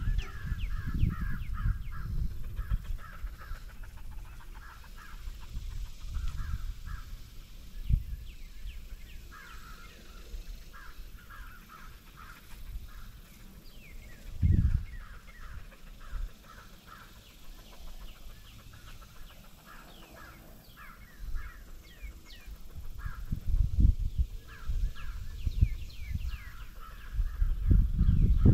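Birds calling over and over in short, repeated notes, with gusty wind rumbling on the microphone that grows louder toward the end.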